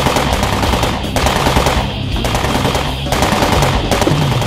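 Rapid automatic gunfire from a film's dubbed sound effects, in runs of fast shots with brief breaks, over a low hum.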